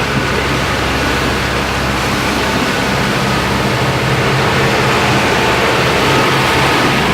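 Steady rush of wind on the microphone and water along the hull of a sailing catamaran under way, with a low steady hum underneath.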